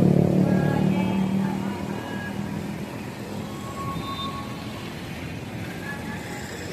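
A motor vehicle engine passing close by and fading away over the first two seconds, leaving a steady rushing noise.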